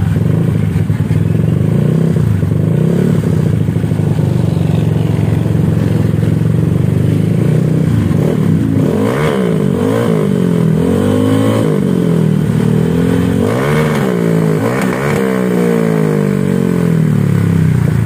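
Honda Vario scooter's single-cylinder four-stroke engine running loud through a racing exhaust, idling steadily at first. From about halfway through it is blipped several times, its pitch rising and falling back with each rev.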